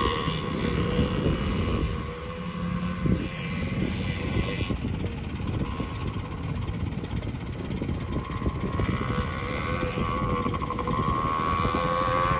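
Small 50cc kids' dirt bike engines, a Yamaha PW50 and a Honda XR50, buzzing steadily as they ride around the track. The engine note fades about two seconds in and grows louder again from about nine seconds as a bike comes closer.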